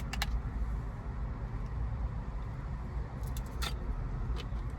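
Steady low rumble inside a car, with a few sharp clicks and rustles of a takeout container being handled.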